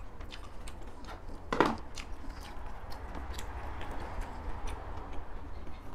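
Close-miked chewing: wet mouth clicks and lip smacks in quick succession as she eats, with one louder mouth sound about one and a half seconds in.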